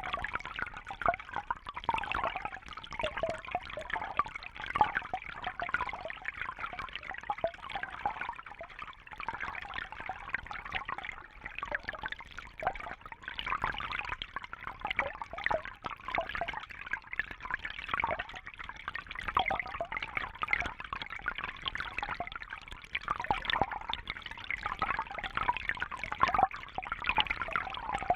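Shallow brook babbling over stones: a continuous gurgle and trickle of running water full of small bubbling splashes.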